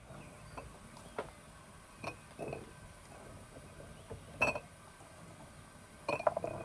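Glass jars and kitchenware clinking and knocking on a wooden table, a handful of separate light taps with the loudest about four and a half seconds in and a quick run of knocks near the end.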